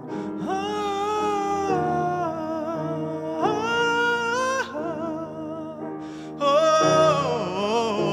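Man singing long, sliding held notes with vibrato over grand piano accompaniment. The voice swoops up into held notes twice and winds down in a falling phrase near the end.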